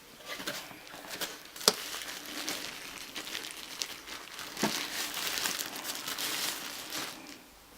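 Packaging crinkling and rustling as it is unwrapped by hand, with a few sharp clicks along the way; the rustling dies down near the end.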